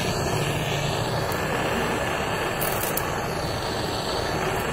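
High-pressure LPG torch burning with a steady rushing hiss. The steady sound is the sign that the torch is lit, even though its flame can hardly be seen.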